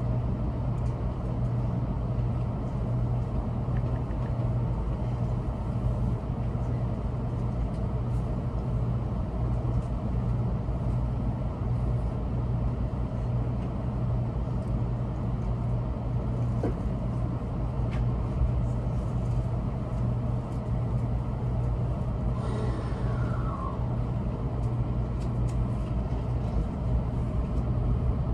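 Steady low hum inside the passenger cabin of an N700S Shinkansen car standing at a station. A brief falling tone sounds about four-fifths of the way through.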